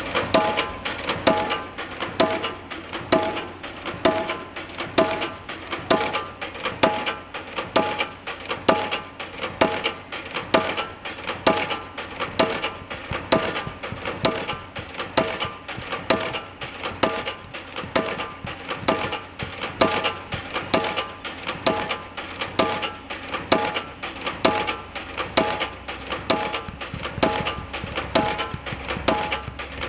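Pile driver hammering a pile, a steady rhythm of sharp metallic blows, each one ringing briefly.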